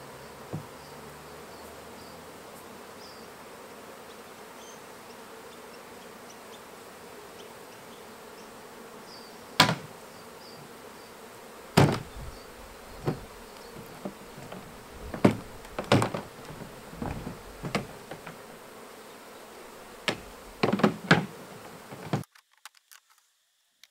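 Honey bees buzzing steadily around an opened hive. From about ten seconds in there is a series of sharp knocks as wooden frames and plastic tub lids are handled. The sound cuts off shortly before the end.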